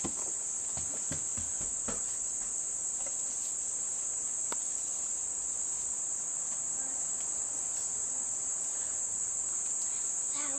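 Steady, unbroken high-pitched chorus of insects trilling, with a few soft knocks in the first two seconds.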